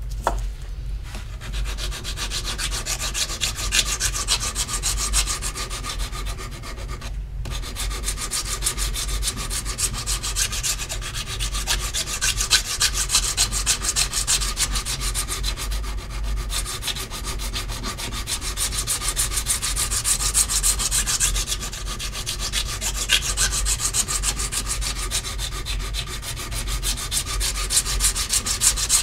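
Copper printmaking plate being scrubbed by hand with an abrasive: fast, steady back-and-forth rubbing that stops briefly about seven seconds in. This is the plate surface being abraded to remove imperfections and polish it before the ground goes on.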